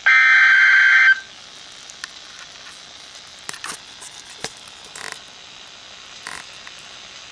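A weather radio alert's digital data burst: about a second of harsh warbling tones that cut off suddenly, as sent at the end of a broadcast warning. Steady radio hiss with faint crackles follows.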